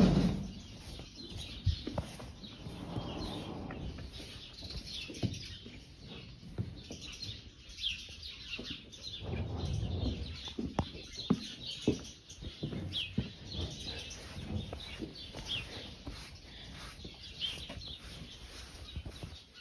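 Small birds chirping, short high chirps repeating over and over, over scattered knocks and rustling of handling; a loud bump right at the start.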